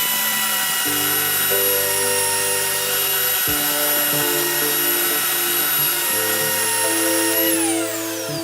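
Electric power tool running steadily at full speed with a high whine, then switched off about seven and a half seconds in, its pitch falling as the motor spins down. Background music plays under it.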